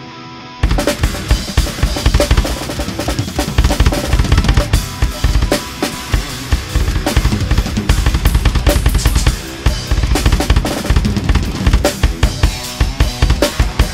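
Acoustic drum kit played fast and hard in a metal groove, with rapid bass drum strokes, snare hits and cymbals. The drums drop out briefly at the start, leaving only a sustained chord from the backing track, and come back in about half a second in.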